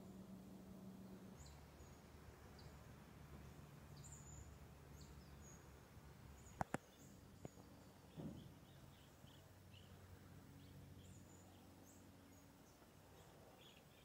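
Near silence: faint outdoor ambience with a low hum and scattered short, high bird chirps. A few sharp clicks and a short knock come about halfway through.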